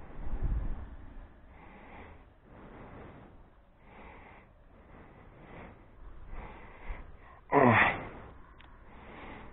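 A person breathing close to the microphone, with soft breaths every second or so and one loud, short vocal burst falling in pitch about three-quarters of the way through.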